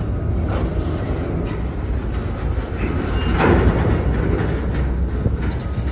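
Covered hopper car rolling slowly past on the rails: a steady low rumble from the wheels, with a clack at the rail joints about once a second, the loudest about three and a half seconds in.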